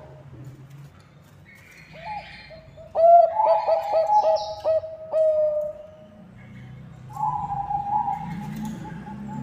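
Bangkok-type zebra dove (perkutut) cooing: about three seconds in, a quick run of about six short staccato notes that runs into one long held note, then a second cooing phrase, a long slightly falling note, starting after a short pause.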